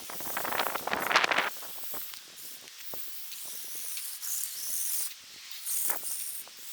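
Radio-controlled trucks churning and plowing through fresh snow: a coarse rush of pushed and sprayed snow for about a second near the start, then softer hissing bursts later.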